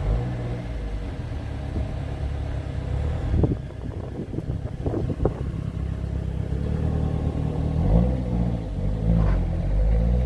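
A motor vehicle engine running with a low drone that wavers in pitch near the end, with a few short knocks around the middle.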